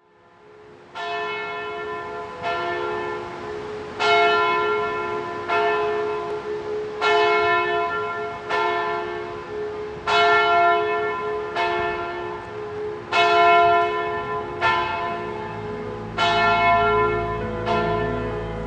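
A church bell tolling, struck about every one and a half seconds, each stroke ringing on into the next. Soft music comes in underneath near the end.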